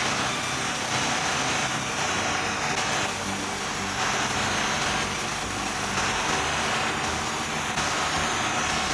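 Sawmill machinery running steadily while cutting mahogany: a constant engine-driven drone with a steady mid-pitched whine.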